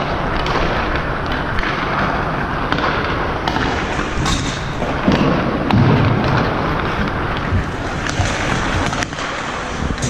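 Ice hockey practice on the rink: skates scraping across the ice, with repeated sharp cracks of sticks striking pucks.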